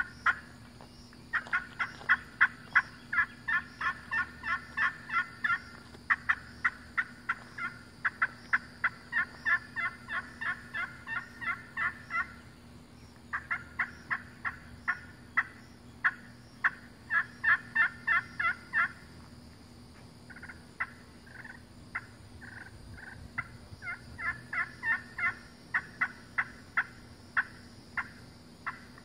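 Walnut slate turkey call (friction pot call) worked with a striker, giving hen-turkey calling in long runs of short, sharp notes at about three or four a second. The runs break briefly a little under halfway and thin to a few scattered single notes about two-thirds through before picking up again.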